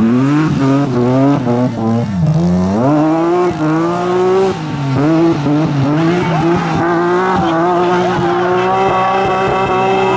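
BMW rally car's engine at full effort, its revs jumping up and down through gear changes and lifts for the first few seconds, then climbing and held high and steady to the end.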